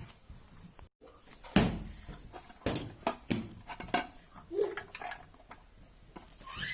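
Tableware clinking and knocking during a meal: a run of separate sharp clicks against a plate, irregularly spaced, loudest about one and a half seconds in.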